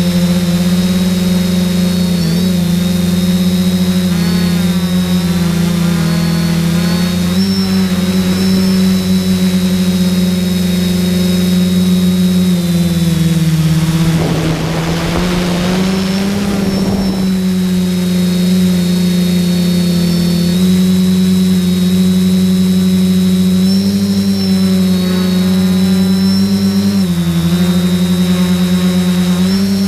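SK450 quadcopter's four motors and propellers heard from the camera on board, a steady drone with a high whine above it, its pitch dipping and rising slightly as the throttle changes. A few seconds of added hiss come about halfway through.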